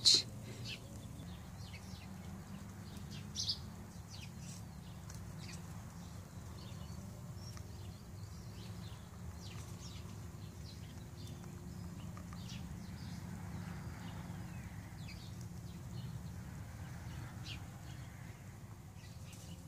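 Outdoor ambience: small birds chirping now and then, high and brief, over a steady low hum, with one louder chirp about three and a half seconds in.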